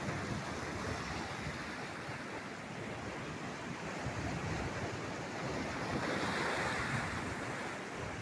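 Ocean surf breaking and washing over a rocky shore, a steady rush of water that swells louder about six seconds in.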